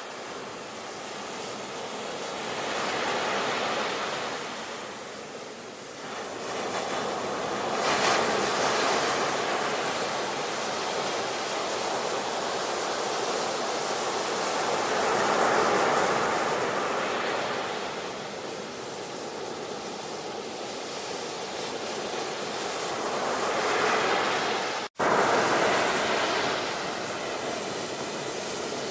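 Ocean waves breaking and washing up on a shore, the surf swelling and ebbing every few seconds. The sound drops out for a split second near the end.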